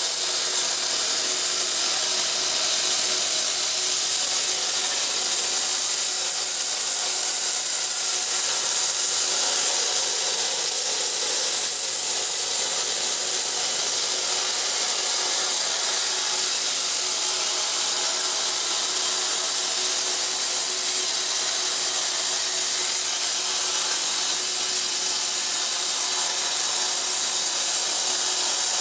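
Koike Aronson CNC plasma torch cutting metal plate: the arc and its gas jet make a loud, steady hiss, with a faint steady tone underneath.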